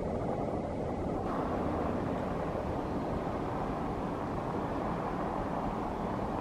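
Waterfall rushing in a steady, even roar, with no distinct locomotive chuffing standing out above it.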